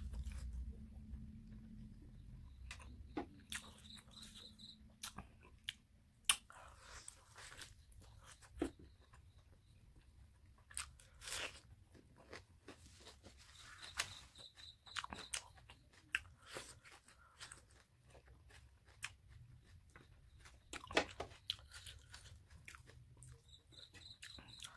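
Close-up eating of a curried chicken leg piece by hand: chewing with lip smacks, and irregular sharp crunches and snaps as the meat is bitten and pulled from the bone.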